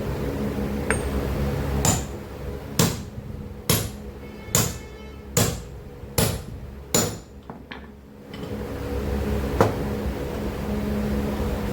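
Hammer blows on metal, about seven in a row at under a second apart, each with a short metallic ring, then one more blow near the end. A steady machine hum runs underneath, fading during the run of blows and coming back afterwards.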